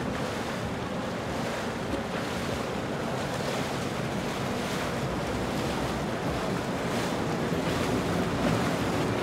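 Steady rush of water and wind buffeting the microphone, with a boat's engines running low underneath as the cruiser moves slowly along the river.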